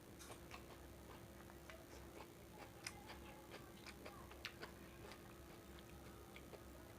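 Quiet eating of fried rice: scattered soft clicks of chewing and mouth noises, with a faint steady hum under them.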